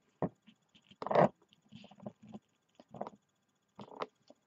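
Handling noises from a plastic action figure being positioned and stood upright on a surface: a few light knocks and rustles, with one louder knock about a second in.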